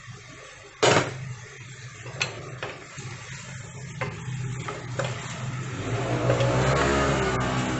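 Stovetop stir-fry cooking: a sharp clatter of a utensil or pan about a second in, a few lighter utensil clicks, then sizzling that grows louder toward the end, over a steady low hum.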